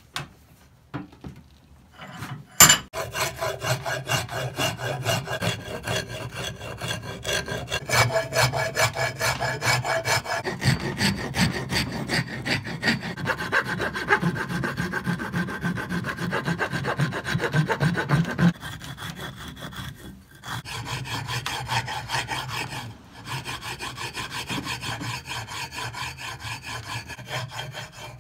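A file rasping hickory wood on an axe handle in quick repeated strokes, with a few short pauses. A single sharp knock sounds about two and a half seconds in.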